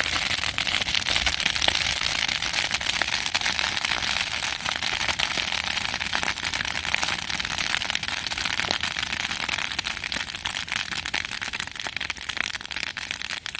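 Dead, dry pampas grass clumps burning hot and fast, with a dense, steady crackling and popping over a hiss of flame.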